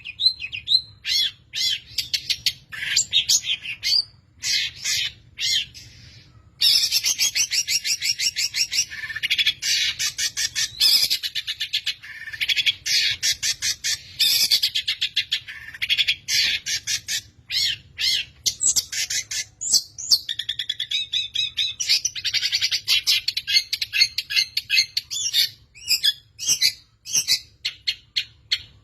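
Long-tailed shrike (pentet) singing a fast, harsh song of rapid rattling trills and rolls mixed with sharp chirps, in runs of several seconds separated by short pauses.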